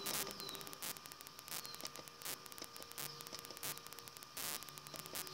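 Faint irregular clicks, several a second, over a steady electrical hum and hiss.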